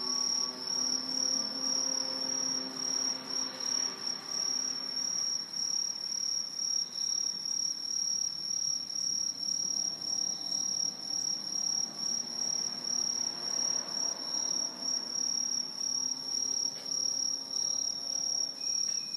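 A chorus of many aomatsumushi (Truljalia hibinonis, green tree crickets) singing together in the trees: a continuous high-pitched trilling that swells and fades in quick pulses as the calls overlap.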